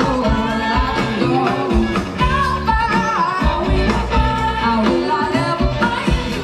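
Live band music: a woman singing lead over electric guitar, upright bass and drum kit, with a steady beat.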